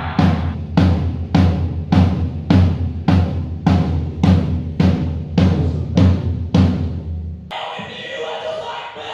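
Live drum kit played in a slow, steady beat: a heavy hit just under twice a second, deep bass drum with a bright crack on top. About a second and a half before the end the drumming cuts off suddenly and a steady room noise takes over.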